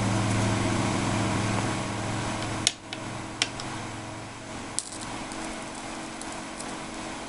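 Steady electrical hum from a running ZVS driver and flyback transformer setup, idling without an arc, that slowly fades. A few sharp clicks come in the middle.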